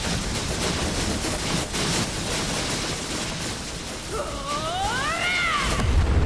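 Animated battle sound effects: a dense, rumbling din of impacts and blasts. About four seconds in, a whining cry rises and falls twice, and a heavy low boom hits near the end.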